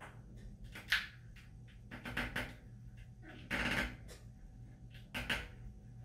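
Handling noise from a plastic twist-lock suction hook base being rotated against a glass shower panel: several short, scattered scrapes and clicks, one a little longer near the middle.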